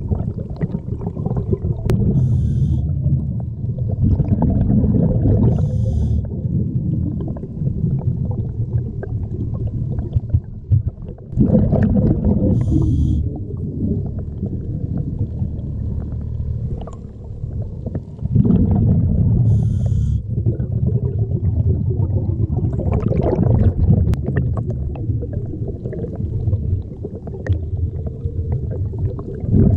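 Underwater ambience: a continuous low rumble of water moving around the submerged camera, with faint short high chirps every few seconds.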